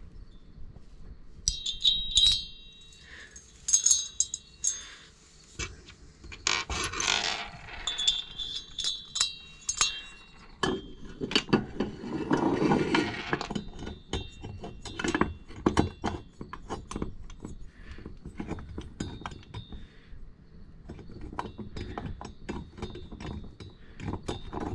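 Metal parts of a chainsaw engine clinking and ringing as the cylinder is set onto the crankcase and its bolts are handled, with a few louder bumps and scrapes. Later comes a run of quick light ticks as the bolts are turned in with a T-handle hex wrench.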